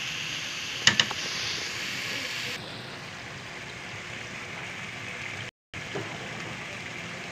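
Red onions sizzling in a frying pan, with two quick clinks of the metal spatula against the pan about a second in. After about two and a half seconds the sizzle drops to a softer, steady hiss, broken by a brief gap near the middle.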